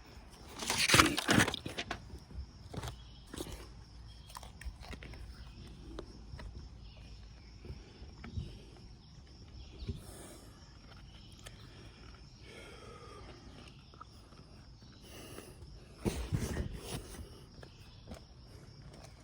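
Handling noises from applying self-adhesive repair tape to an RV awning: a loud rustle about a second in and another near the end, with scattered small clicks and taps between. A steady high insect trill runs underneath.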